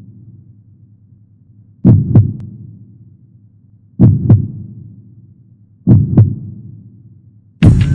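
Deep double thumps in a heartbeat rhythm, lub-dub, three times about two seconds apart, each ringing down slowly. Just before the end, loud band music starts.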